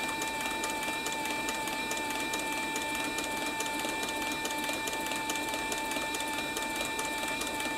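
Cowboy CB4500 heavy-duty leather harness stitcher sewing through a double layer of leather: a steady motor whine under even, rapid ticking of the needle and shuttle mechanism.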